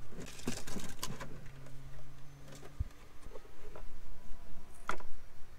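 Rummaging: scattered light clicks and knocks of objects being handled, the sharpest about five seconds in. A faint steady low hum runs for about a second in the middle and stops on a knock.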